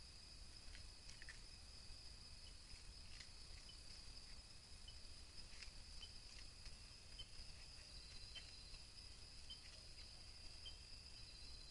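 Night insects trilling steadily and high-pitched, with short faint chirps about once a second and a few faint clicks, under a low hum.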